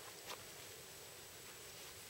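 Near silence: faint background hiss with one soft click about a third of a second in; the chainsaw is not running.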